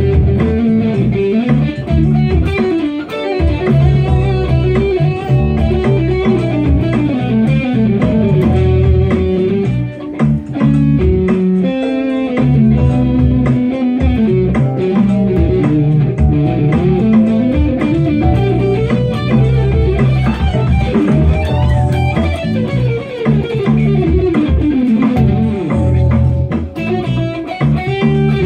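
Instrumental pop music led by guitar, with a guitar melody over bass and a steady beat.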